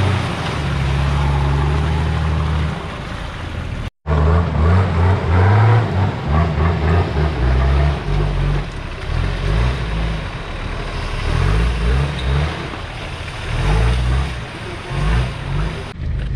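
Engine of a lifted off-road 4x4 revving in repeated surges under load as it crawls through deep mud and ruts, its pitch rising and falling with the throttle. The sound cuts out for an instant about four seconds in.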